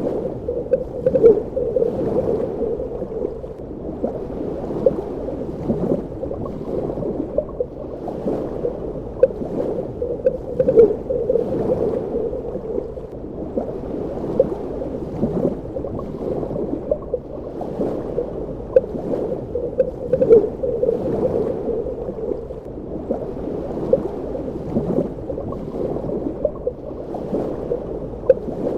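Underwater ambience: a continuous muffled water sound with many small bubbling, gurgling pops throughout.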